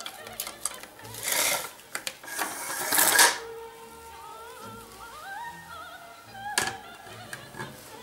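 Opera singing over background music. Over it, cling film crinkles as it is pulled out of a CutCut wrap film dispenser and cut by the dispenser's sliding blade, with the loudest swish about three seconds in. There is a short knock near the end.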